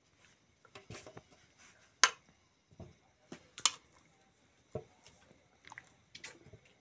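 Boiled potatoes being lifted out of a metal pot of water onto a steel plate: irregular clinks and knocks of a utensil and potatoes against the metal, about half a dozen of them sharp.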